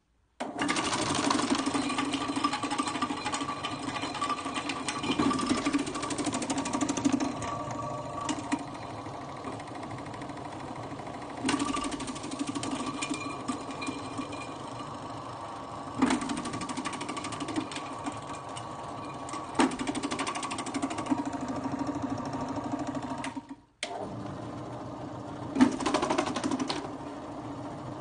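Electric stainless-steel vegetable slicer running: a steady motor hum with the rattle of its spinning cutting disc, growing louder and busier in stretches as vegetables are pushed through and cut. The sound breaks off for a moment near the end.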